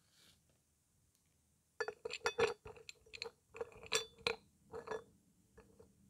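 Dry chunks of edible clay clinking against a hard plate as they are handled and rearranged. The clinks come in a quick, irregular run from about two seconds in, each with a short ringing note, then tail off near the end.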